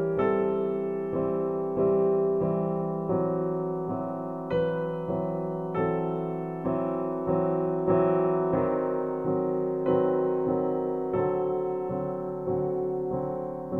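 Background music: a piano playing a gentle pattern of chords, each struck and left to fade, about one every half second to second.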